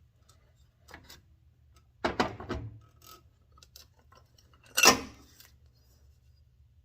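Metal tools clinking and clanking as a jack handle wedged in the belt tensioner is pulled out and the tensioner is let go onto the new belt: a light clink about a second in, a short rattle of clinks around two seconds, and one sharp loud clank near five seconds.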